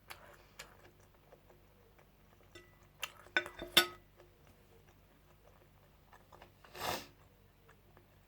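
Eating sounds: cutlery clicking against a plate, a few sharp clicks in a quick cluster about three seconds in, with quiet chewing between, and a short rushing breath-like sound near the end.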